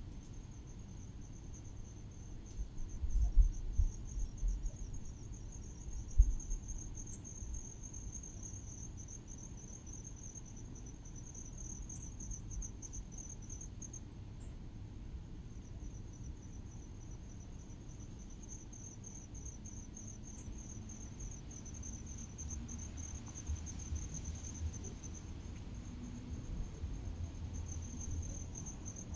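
Crickets trilling in a steady, high, continuous chirr that breaks off briefly twice. A few seconds in, low gusts of wind buffet the microphone, the loudest sounds here.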